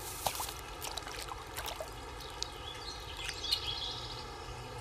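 Water splashing and sloshing in a shallow ditch as men wade and work a bamboo fish trap, in short irregular splashes.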